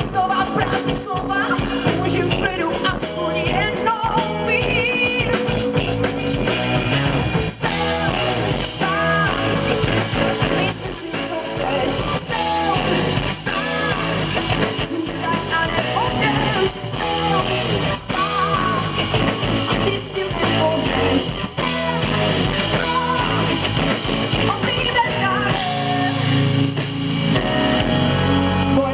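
Live pop-rock band playing on stage, with electric guitars, bass guitar and drum kit.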